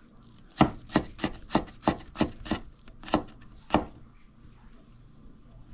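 Garlic being smashed and chopped: about nine sharp knocks, roughly three a second, that stop just before four seconds in.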